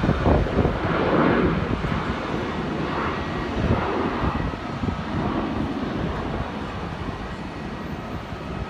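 Jet airliner's engines running: a broad rushing noise, loudest in the first two seconds and then easing off, with a faint steady whine. Wind buffets the microphone.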